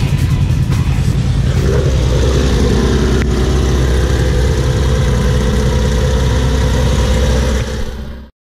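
Engine of a short-course off-road race buggy running, settling into a steady idle about two seconds in. The sound cuts off suddenly near the end.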